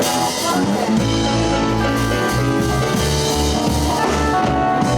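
Live blues band playing: drum kit, electric bass and guitar, with the bass line coming in strongly about a second in.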